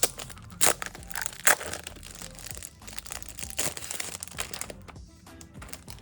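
Poster packaging crinkling and crackling as it is handled and opened, with a few sharp crackles in the first half, over soft background music.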